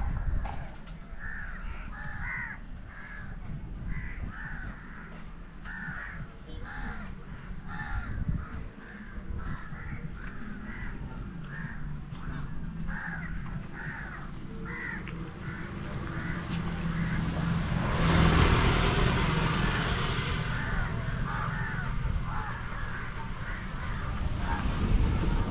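Crows cawing over and over, a call about every half second to a second. About two-thirds of the way through, a loud rushing noise swells for about two seconds.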